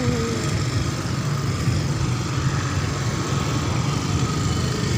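Steady low rumble of road traffic and running engines, with no clear single event standing out.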